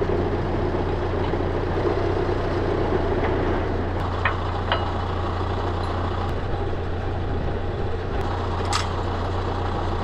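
John Deere 6200 tractor's diesel engine idling steadily, with a few short metallic clicks as the leveller is unhitched from the three-point linkage.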